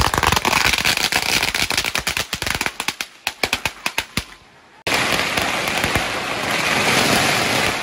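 Strings of firecrackers going off in a rapid, dense crackle of bangs that thins to scattered pops about four seconds in. After a brief lull, a steady dense noise starts abruptly near five seconds.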